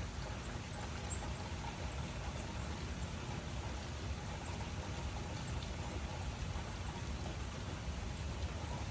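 Steady rainfall, an even hiss with a low rumble under it and a few faint drop ticks on top.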